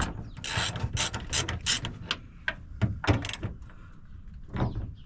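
Hand socket ratchet on a 10 mm extension clicking in quick runs as bolts are broken loose.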